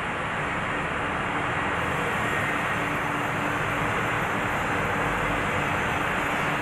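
Plywood double-sizer edge-trimming saw machine running steadily: its motors and spinning saw blades make an even drone with a faint steady hum, with no cut or impact heard.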